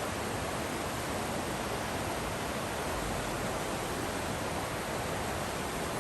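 Waterfall rushing steadily, an even unbroken noise with no rise or fall.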